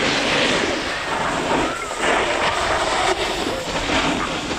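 Snowboard sliding and scraping over packed snow, with wind rushing over the camera microphone as the rider moves downhill; a steady noisy rush.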